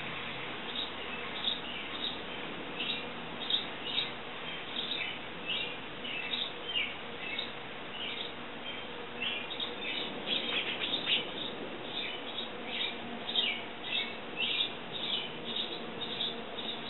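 House sparrows chirping: a continuous run of short, repeated cheeps, about two or three a second.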